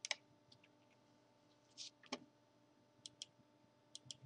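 Near silence with a few faint, sharp clicks, some coming in close pairs.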